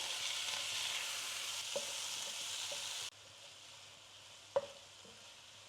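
Chopped onion and tomato frying in coconut oil in a pan, sizzling steadily while being stirred, with a few light knocks. The sizzle cuts off suddenly about three seconds in, leaving only a faint hiss.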